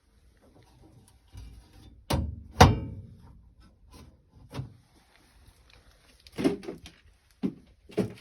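Steel drawers of a 1940 Snap-on K260 tool chest being shut: two loud metal clunks about two seconds in, the second ringing briefly, then several lighter knocks.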